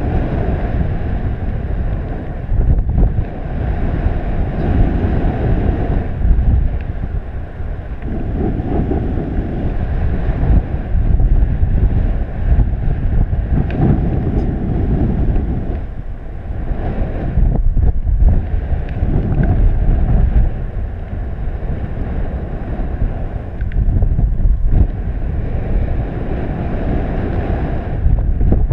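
Airflow of a paraglider in flight rushing over the microphone: a loud, low rumbling wind noise that swells and eases every few seconds.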